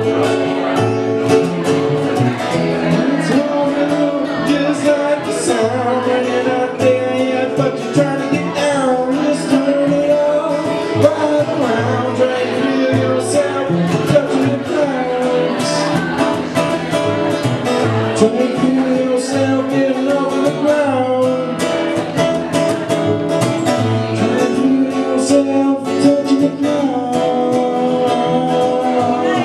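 Live acoustic band music: an acoustic guitar strummed in a steady rhythm and an upright double bass plucked underneath, with a man singing lead.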